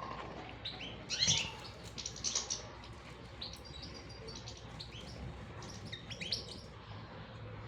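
Birds chirping: clusters of short, high chirps, the loudest just over a second in, with more scattered groups through the rest.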